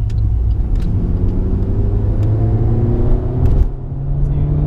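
Alfa Romeo Giulietta QV's 1750 TBi turbocharged four-cylinder engine accelerating through a Supersprint exhaust, its note rising steadily. About three and a half seconds in it breaks off briefly at a gear change, then rises again.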